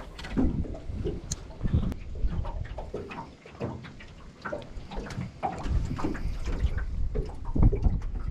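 Water lapping and slapping irregularly against the hull of a small boat on choppy water, with wind rumbling on the microphone.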